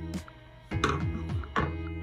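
Background music with sustained pitched notes; it drops away briefly just under half a second in and comes back.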